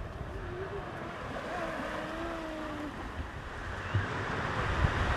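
Ocean surf washing up the beach, a steady rush that swells louder about three seconds in, with wind rumbling on the microphone and a couple of low gust thumps near the end.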